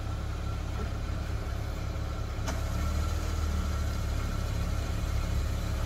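Steady low rumble of an idling engine, with a faint click about two and a half seconds in.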